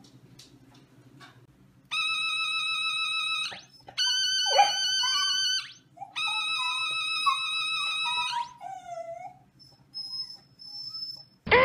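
Kenner's radio-controlled R2-D2 toy sounding its high, steady electronic tone three times, each lasting about two seconds, with a dog whimpering in the gaps between.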